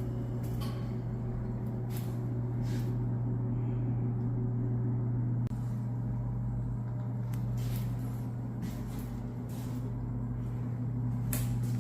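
Rice-cake mill machinery running: a steady electric motor hum with scattered sharp clicks and knocks.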